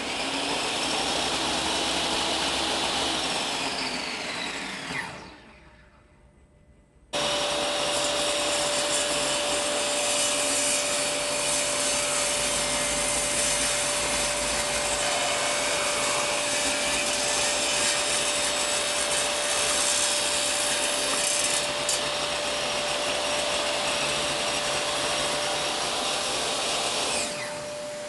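Total TS5152542 10-inch table saw's brushed universal motor running with no load, then switched off: the electric brake pulls it down with a falling whine to a stop in about a second. After a second or two of near silence it starts again at once and runs steadily with a high whine, dropping in level near the end.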